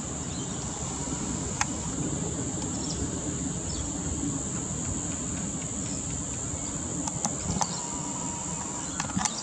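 Outdoor insect chorus: one shrill, unbroken high-pitched note, over a low background rumble. A few short sharp clicks break through, once early on and a few times near the end.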